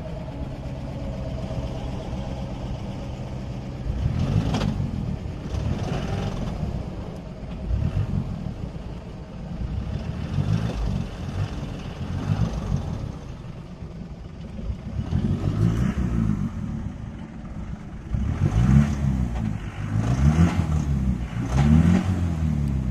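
Off-road 4x4's engine running steadily, then revved again and again, each rev rising and falling in pitch, with the last few revs the loudest.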